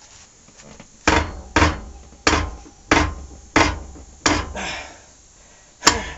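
Transmission mainshaft nut on a 2006 Harley-Davidson Dyna Wide Glide being turned off with a long breaker bar, giving a series of loud, sharp cracks about every half second, each with a short ringing tail, and one more after a pause near the end. The nut is coming off crunchy, not smoothly.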